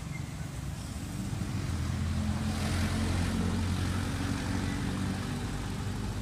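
A motor vehicle's engine passing by: a steady low engine sound that swells to its loudest about three seconds in and then eases off.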